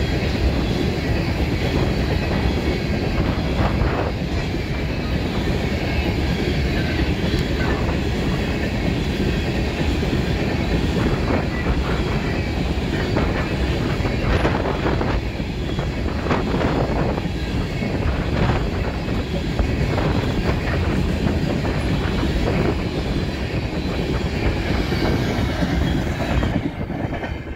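Freight train coal cars rolling past: a steady rumble of steel wheels on rail with irregular clickety-clack as the trucks cross rail joints, and a faint wheel squeal at times.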